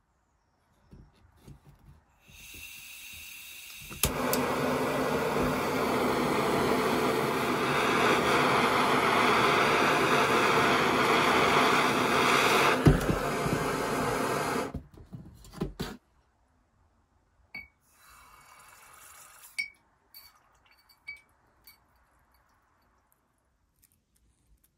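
Handheld butane blowtorch heating a steel washer: gas hisses from about two seconds in, then with a click the flame lights and burns with a steady rushing noise for about ten seconds before shutting off abruptly. Faint clinks of metal follow.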